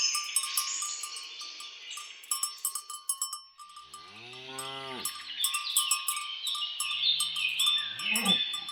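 Cattle mooing twice, a long low moo about four seconds in and a shorter rising one near the end, over birds singing in runs of falling notes and the clanking of cowbells.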